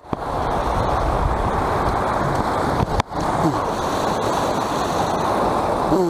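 Fast water of a small river rushing over rock slabs and small falls, a steady noise close to the microphone. It briefly cuts out twice, just at the start and about three seconds in.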